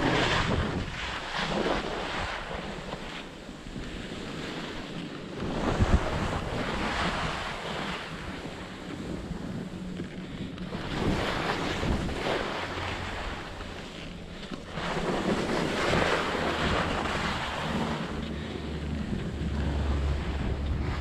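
Wind buffeting a helmet-mounted camera's microphone while skis scrape and hiss over firm snow. The noise rises and falls in long swells every few seconds, following the skier's turns.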